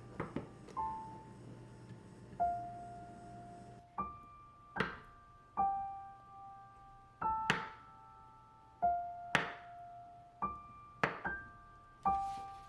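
Soft piano background music with a knife chopping on a cutting board: a handful of slow, separate chops about two seconds apart.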